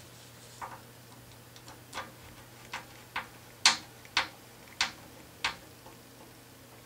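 A small precision screwdriver turning a tiny screw into a model car's frame: a string of about nine sharp clicks, roughly one every half second, the loudest near the middle.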